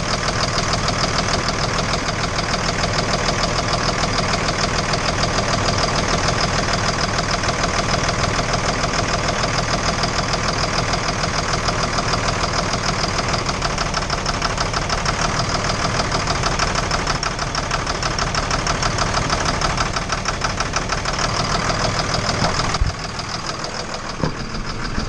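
Engine running at a steady speed with a fast, even knock in its note, the sound of engine knock. Near the end there is a sharp click, and the running turns quieter.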